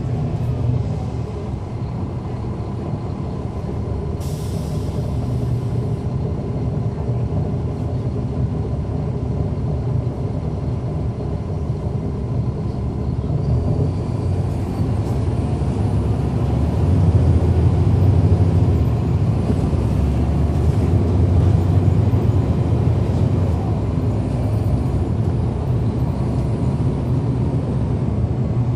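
Caterpillar C13 ACERT diesel engine of a NABI transit bus, heard from the rear of the passenger cabin, running with a steady low drone that grows louder in the second half. A short hiss of air from the bus's air brakes comes about four seconds in.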